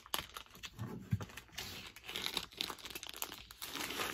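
The wrapping of a comic book pack being torn open and crinkled by hand: a run of quick crackles and rustles.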